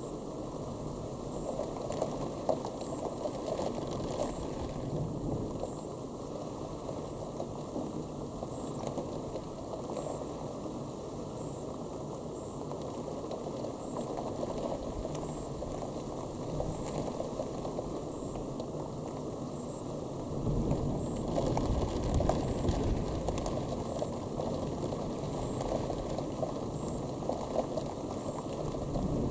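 Steady rain hiss during a night thunderstorm. A low rumble of distant thunder swells for a few seconds about two-thirds of the way in.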